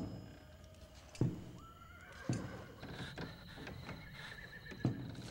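Slow, heavy boot footsteps on wooden floorboards, a thud about every second, while a horse whinnies in one long wavering call.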